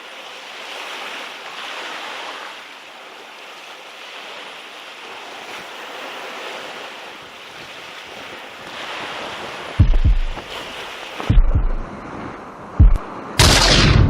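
Sea surf washing against a rocky shore, a steady rush. In the last few seconds strong wind gusts hit the microphone as three loud low thumps, followed by a loud whoosh near the end.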